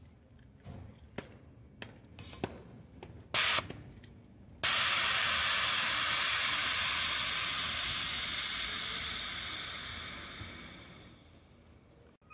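Air-suspension system venting compressed air. A short, sharp burst of hiss comes about three and a half seconds in, then a loud hiss starts suddenly just before five seconds in and fades away over about six seconds. A few faint clicks come before.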